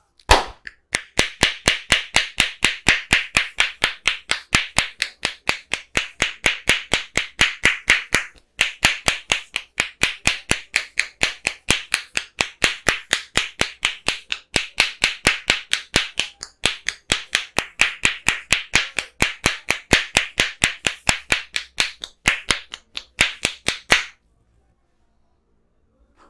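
Percussive massage strokes: the masseur's hands striking in quick, even slaps that sound like clapping, about four or five a second. The strikes run in long bursts broken by two short gaps, and there is a brief pause shortly before they stop.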